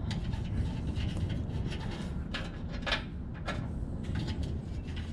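A few faint, light clicks of small metal nuts being started by hand on the studs of a fuel sender mounting plate, over a steady low rumble.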